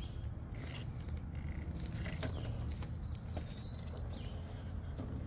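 Scattered clicks and crackles from a small RC rock crawler's tyres crawling over twigs, needles and rock on a forest trail, over a steady low rumble. A bird whistles a short wavering note about three seconds in.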